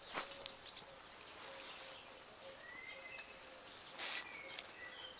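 Quiet outdoor ambience with birds chirping: a few short, high chirps and whistles scattered through, and a brief noise about four seconds in.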